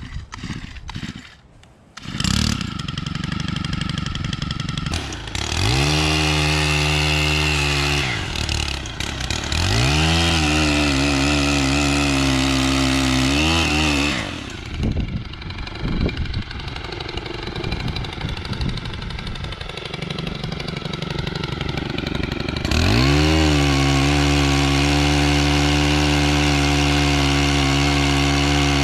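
Gas pole saw's small two-stroke engine running, revved up to full throttle three times for several seconds each while cutting, dropping back to a lower run in between.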